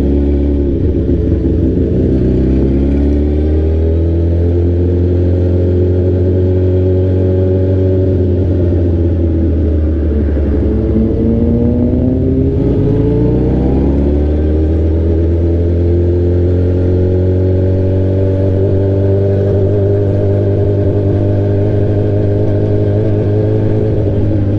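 Straight-piped sport bike engine running under way. About ten seconds in, the engine note falls as the bike slows, then it rises again as the rider accelerates, and it settles into a steady cruise.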